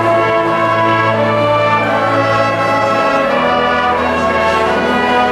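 Brass band of trumpets and sousaphones playing slow held chords over a steady bass note; the bass steps lower about three seconds in.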